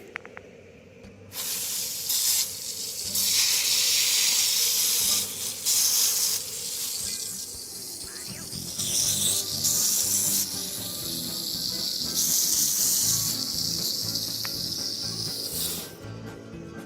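Water spraying from a garden hose, a loud hiss that starts suddenly about a second in, swells and eases as the spray shifts, and cuts off near the end.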